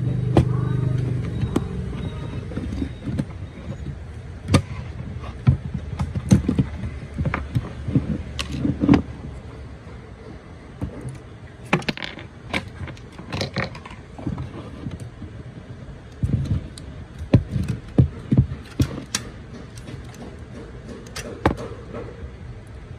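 Irregular clicks, taps and knocks of small hard plastic parts being handled while a Canon Selphy CP1300 photo printer is taken apart, over a low steady hum.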